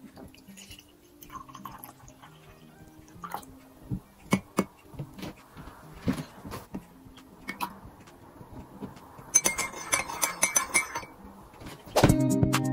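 Glass teapot and ceramic mug clinking and knocking as tea is poured and the pot is set down on a wooden board: scattered single knocks, then a quick run of clinks about nine seconds in. Soft background music plays throughout and becomes much louder near the end.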